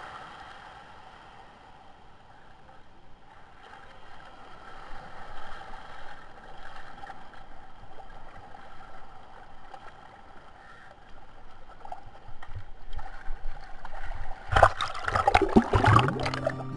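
Faint sea water lapping on a pebble beach, then about two seconds before the end, loud splashing and gurgling as the camera is plunged into the sea.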